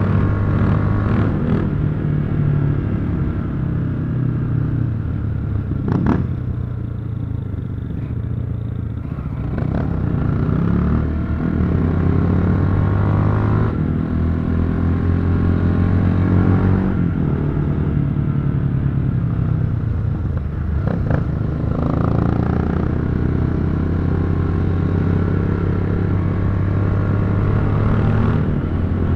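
Motorcycle engine running under way, its note rising and falling with throttle and gear changes, with wind noise. Two brief sharp cracks cut through, one about six seconds in and one about twenty-one seconds in.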